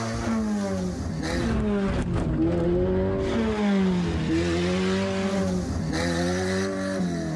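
Ford Festiva's small four-cylinder engine revved hard, its pitch climbing and dropping again and again as the car is driven.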